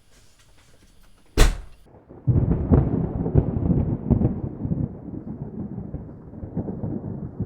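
A loud sharp clack, then a Mini's rebuilt engine bursts into life and runs with a deep, uneven rumble that slowly settles.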